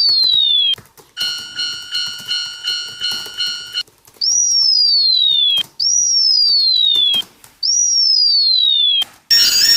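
Railroad crossing warning alarms of different types, one after another: a falling electronic tone sweep, then a ringing crossing bell sounding about two to three times a second, then three more falling sweeps, and a warbling multi-tone alarm starting near the end.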